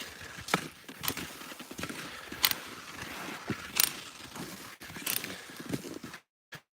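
Skis sliding over snow behind a pulling dog, an uneven scraping and crunching with sharp scuffs every second or so. Near the end the sound cuts out completely for a moment: the live stream's mobile connection drops.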